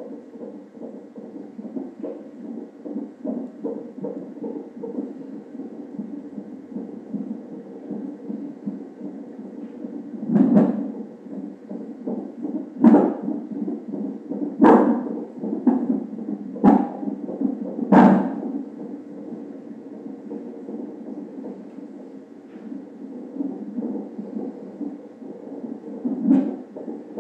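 Fetal heart monitor's ultrasound Doppler sound: a fast, steady whooshing heartbeat at roughly 140 to 160 beats a minute. Several sharp thumps come between about ten and eighteen seconds in, and one more near the end.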